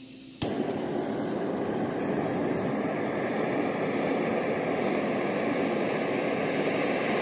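Handheld butane torch lighting with a sharp click about half a second in, then its flame jet running with a steady hiss.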